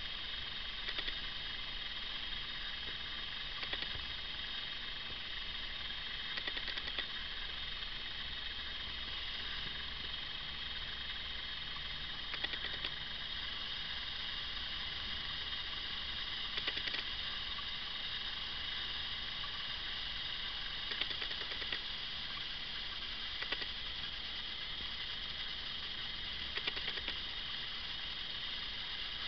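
Steady hiss with a faint whine from a camcorder's own mechanism and electronics, picked up by its built-in microphone. Soft clicks come every few seconds, handling of the camera or the magazine.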